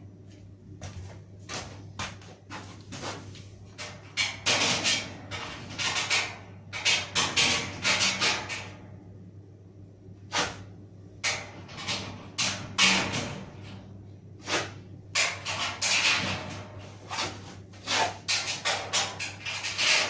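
Clatter, knocks and scraping of the spray booth's sheet-metal panels and fittings being handled and fitted by hand, in uneven bursts, over a steady low hum.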